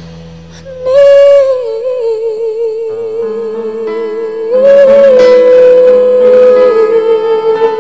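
Slow worship song: a singer holds long notes with a wavering vibrato over a soft instrumental backing, swelling louder about a second in and again past the middle.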